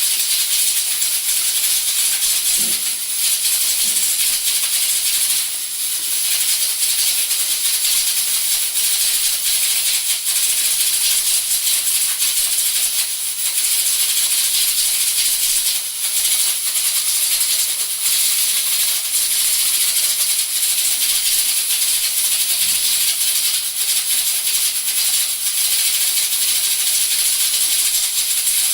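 Two Prestige pressure cookers venting steam through their whistle weights: a loud, continuous hiss with a fast rattling edge.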